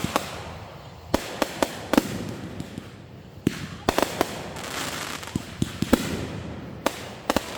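Fireworks going off: about ten sharp bangs and pops at uneven intervals, with a noisy haze between them.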